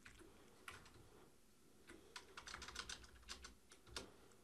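Faint computer keyboard keystrokes: a single tap, then a rapid run of about a dozen key presses, and one more tap near the end.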